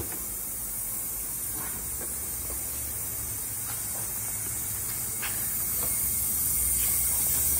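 Steady hiss of compressed air escaping from a Can-Am X3's turbo intake plumbing, held at about 20 psi with shop air for a boost leak test: the hiss is the sign of a boost leak. A few faint short squirts from a soapy-water spray bottle sound over it.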